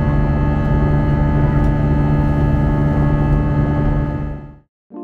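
Steady cabin noise of an Airbus A320 in flight, heard from inside the passenger cabin: a low engine drone and rushing air with several steady hum tones. It fades out near the end.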